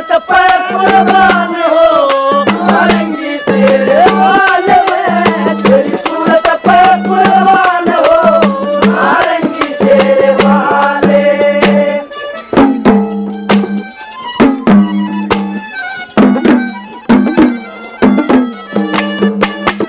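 Haryanvi ragni folk music between sung lines: a melody with sliding pitch over a steady drum beat. About twelve seconds in, the melody thins out and the drum strokes stand out.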